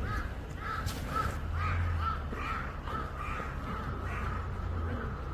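A crow cawing in a quick run of harsh calls, about two a second, over a steady low rumble.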